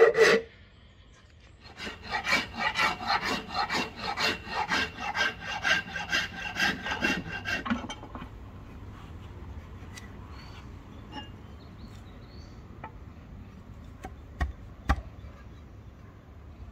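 A hand file scrapes over wood in quick back-and-forth strokes, about three a second. There is a short pause just after the start, and the strokes stop about eight seconds in. After that come a few light knocks.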